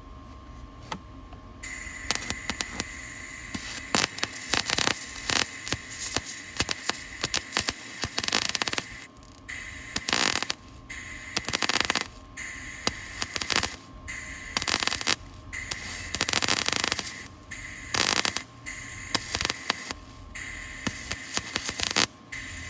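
Electric welding arc crackling and sizzling on a steel vehicle frame, starting about a second and a half in and running in short welds broken by brief pauses.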